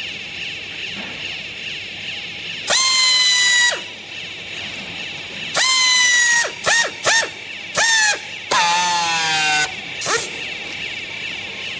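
Vertical hydraulic baler's motor and pump whining in short bursts as it is switched on and off: a loud, high, steady whine about seven times, the longest about a second, each dropping in pitch as it cuts off, over a steady hiss.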